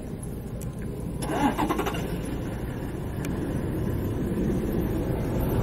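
A vehicle engine running with a low rumble that slowly grows louder, with a short sharper burst of sound about a second in.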